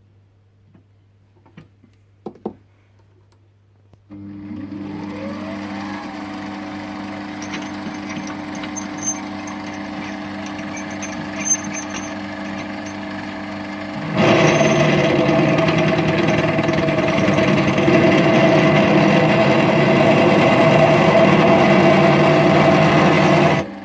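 Lathe motor starting about four seconds in and running steadily. About 14 s in a loud, rough grinding joins it as an untempered HSS drill bit is fed into the work and rubs without cutting. The grinding stops just before the end while the motor runs on.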